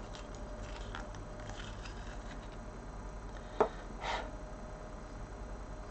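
Short dark sepia coloured pencil and its metal pencil extender being handled: one sharp click a little past halfway, then a brief rustle. A steady low electrical hum runs underneath.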